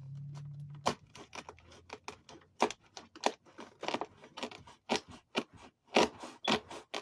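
A cardboard shipping box being opened and handled by hand: an irregular run of sharp scrapes, snaps and crinkles from tape and cardboard. A brief low hum sounds in the first second.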